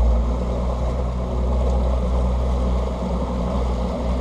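Outboard motor of a Tracker Targa V18 Combo boat running at low speed, a steady low hum, with water rushing along the hull.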